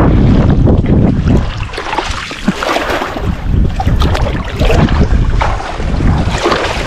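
Wind buffeting the microphone in a heavy low rumble that eases about two seconds in, with scattered rustling and crackling of brush.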